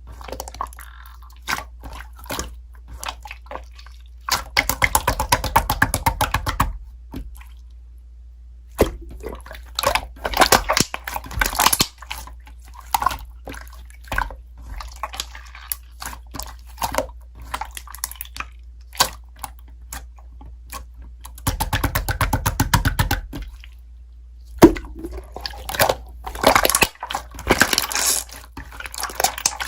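Slime being squished and poked by hand: wet, sticky clicks and pops, with three stretches of rapid crackling as air pockets are pressed out.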